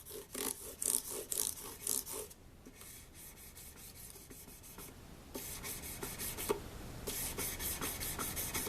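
Quick back-and-forth rubbing strokes polishing mandolin frets with polish to take out scratches. The strokes go briskly at first, soften for a few seconds, then pick up again about five seconds in.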